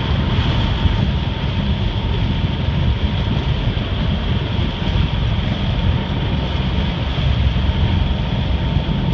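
Steady, loud rumbling rush of a boat underway in choppy water: wind buffeting the microphone over water splashing along the hull.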